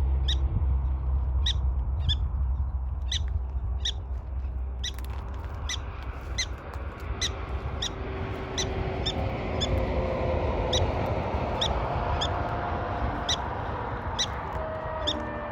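Prairie dogs calling: a steady series of short, sharp chirping barks, about one to two a second, over a low wind rumble.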